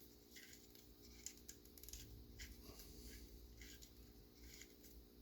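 Faint, scratchy rubbing of a cotton swab wiping excess oil and grease out of an airsoft gun part, in irregular strokes about two a second, over a low steady hum.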